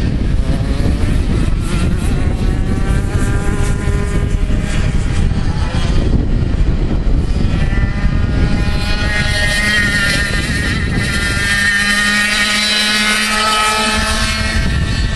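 100cc two-stroke kart engine running at high revs as the kart laps the track, its pitch rising and falling through the corners. It is loudest in the second half as the kart passes close by.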